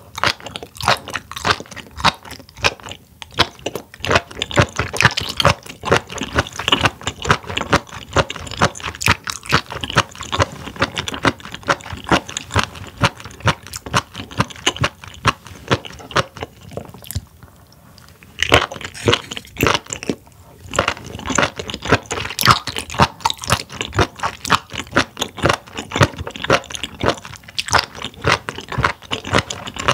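Close-up chewing of raw spoon worm (gaebul), a dense run of crisp, wet crunching clicks. It pauses briefly a little past halfway, then resumes.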